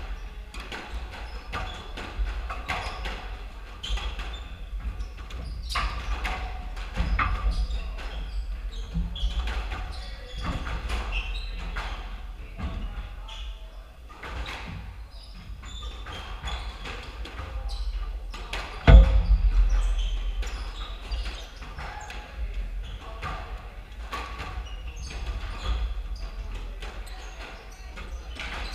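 Squash ball being struck by rackets and smacking off the walls and floor of an echoing squash court, in irregular knocks, with a quieter lull around the middle and one much louder thud about two-thirds of the way through.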